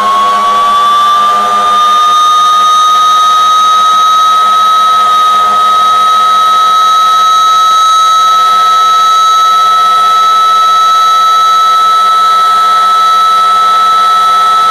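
Loud fire engine siren finishing its wind-up to a high pitch in the first two seconds, then held as one steady, unbroken wail.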